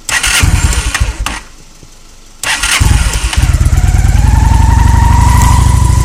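Honda Shadow Spirit 750's V-twin cranked on the electric starter from an ultracapacitor power bank with the choke pulled. A short crank stops after about a second and a half. The second crank catches about a second later, and the engine settles into a steady idle.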